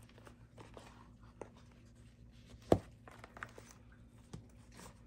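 Faint handling sounds of paper envelopes and budget sheets being slid back into a zippered ring-binder wallet: light rustles and small taps, with one sharper click a little under three seconds in.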